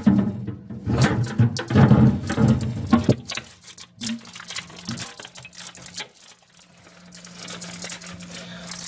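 Hands tugging and prying at a stuck piece of packaging on a new mini fridge: a run of scrapes, clicks and rustles as it is worked loose, busiest in the first three seconds, then a low steady hum under scattered clicks.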